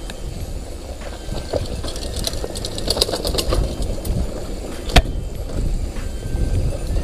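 Mountain bike riding down a bumpy dirt trail: a steady low rumble of tyres and wind on the microphone, the bike rattling and clicking over rough ground, with one sharp knock about five seconds in.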